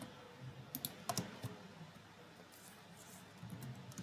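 Computer keyboard keys clicking: a few scattered keystrokes as text is edited, the clearest around a second in.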